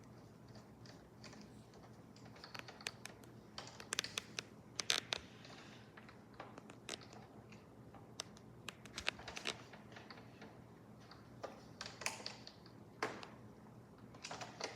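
Irregular small clicks and taps of hard plastic parts being handled while a robot vacuum's side brush is swapped. They come in scattered clusters, thickest about four to five seconds in.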